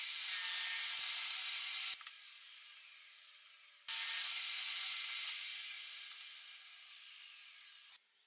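Table saw running and its blade cutting through wood, a loud hissing whine. It drops and comes back suddenly once, and each time it fades with a whine falling in pitch as the blade slows, before cutting off near the end.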